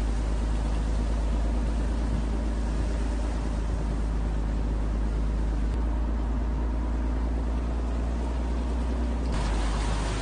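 Steady low rumble and rush of floodwater through the streets. About nine seconds in it changes abruptly to a louder, hissier rush of torrential water.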